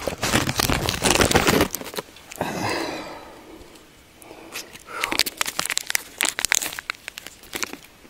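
Close rustling and crinkling right at the microphone, loud for the first second and a half, then scattered sharp clicks and crunches.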